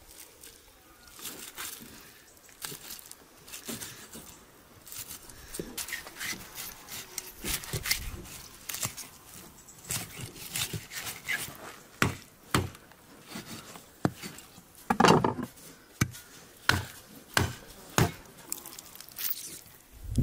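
A knife cutting a large raw fish on a wooden board: slicing along the rib bones, with sharp knocks of the blade on the board coming about once a second in the second half.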